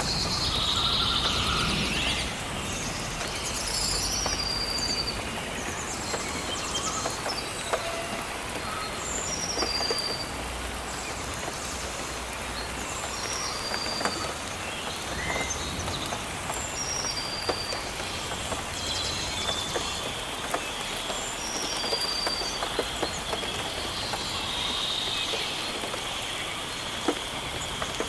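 Steady rain falling on foliage, with scattered louder drip clicks. A bird repeats short groups of high, falling notes every few seconds, and a faint steady high tone sets in about two-thirds of the way through.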